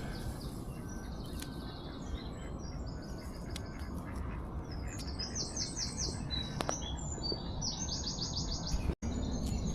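Songbird singing in short fast trills of rapidly repeated high notes, twice in the middle and late part, over steady low outdoor background noise.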